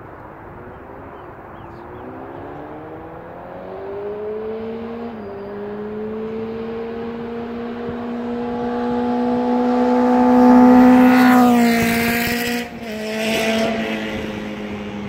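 2014 Honda CBR1000RR's inline-four through an unbaffled Austin Racing GP2R carbon exhaust, approaching under hard acceleration with a rising engine note and a gear change about five seconds in. It is loudest about eleven seconds in, its pitch falls as it passes, the sound breaks off sharply for a moment, and then it fades away.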